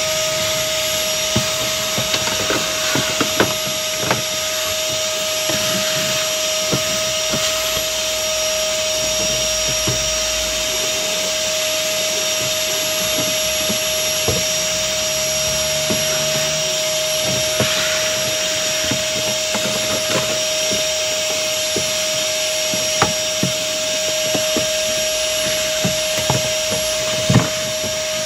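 Vacuum cleaner running steadily, drawing close to 1200 W through an inverter off the van's battery, with a steady whine and scattered clicks and knocks.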